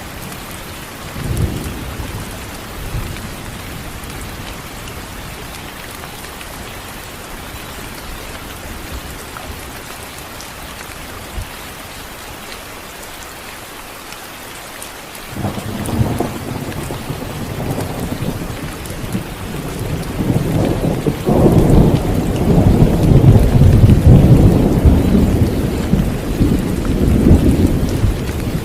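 Steady heavy rain with thunder. A short rumble comes about a second and a half in. About halfway through a long, deep rumble of thunder breaks in suddenly, builds to its loudest about two-thirds of the way through, and is still rolling at the end.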